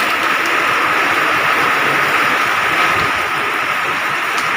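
Rain falling steadily, a loud even hiss with no breaks.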